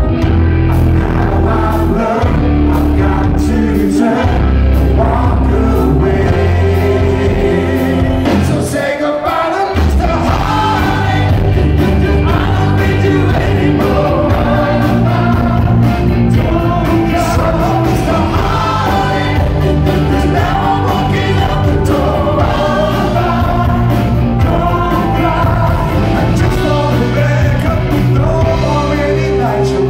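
Rock band playing live and loud: male lead vocals with several voices singing together over electric guitar, bass guitar and drums. The bass drops out briefly about nine seconds in.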